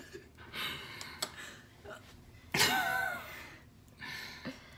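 Breathy laughter and gasps from a woman, with one louder, wavering laugh a little past halfway.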